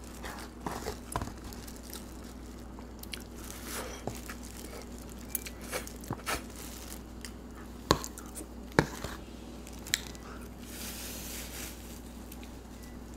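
A person biting and chewing food close to the microphone, with crunches and scattered small clicks, and three sharper clicks in the second half.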